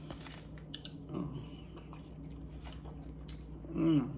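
A person chewing a burger with faint mouth and wet food noises, and a short voiced hum near the end.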